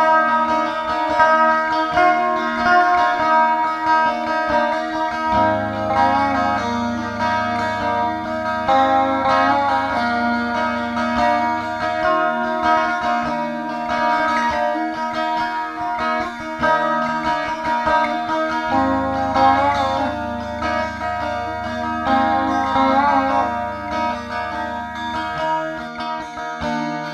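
Music soundtrack led by guitar, with a wavering melody line over held low bass notes that change every few seconds.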